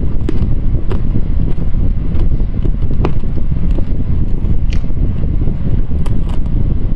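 Close-miked chewing of hard candy: scattered sharp crunches and mouth clicks over a steady low rumble.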